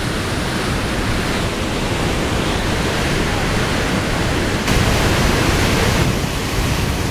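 Mountain river rapids rushing through a rocky gorge: a steady, loud roar of whitewater that swells for about a second past the middle.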